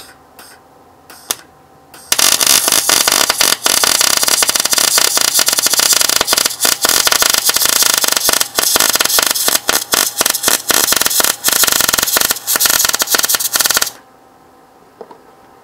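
Wire-feed welding gun arc on steel tubing: a few brief arc strikes in the first two seconds, then about twelve seconds of steady, dense, rapid crackle as a weld bead is run, which stops suddenly near the end.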